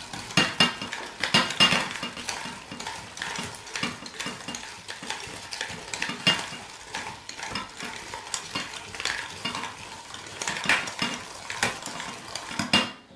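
Stainless steel hand-cranked food mill being turned: its blade scrapes and clicks against the perforated disc in an uneven run of metallic scraping as it purées roasted green peppers.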